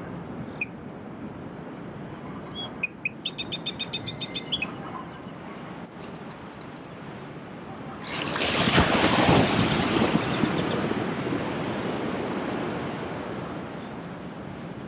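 Sea waves washing on the shore with a steady hiss. A bird gives two quick runs of sharp, repeated calls a few seconds in, then a wave breaks about eight seconds in and its wash slowly dies away.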